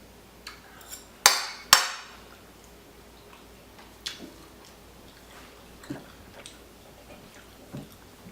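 Dishes and utensils clinking: two loud clatters close together about a second in, then a few faint knocks spaced out afterwards.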